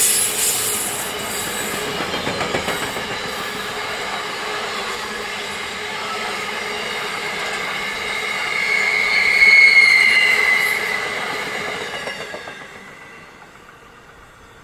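Container freight train's wagons rolling past on steel rails, their wheels squealing in high steady tones that are loudest about nine to ten seconds in. The sound fades away near the end as the last wagons go by.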